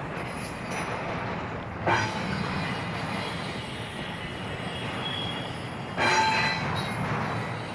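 Union Pacific intermodal freight train rolling past with a steady rumble of wheels on rail. There are two sudden loud hits, about two and six seconds in, and the second rings briefly like a wheel squeal.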